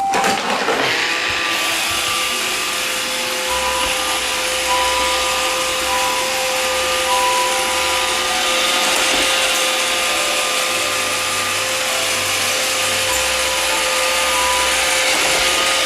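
iRobot Roomba 530 robot vacuum running a cleaning cycle: its vacuum motor and brushes give a steady whir with a steady hum tone, spinning up in the first second.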